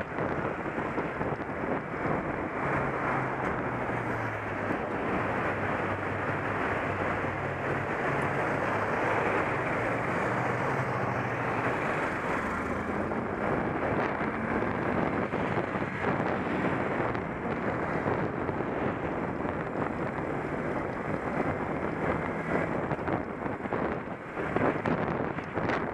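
Steady wind rush on the microphone of a moving Honda CBF125 motorcycle, with the low hum of its single-cylinder engine underneath, rising and falling in pitch.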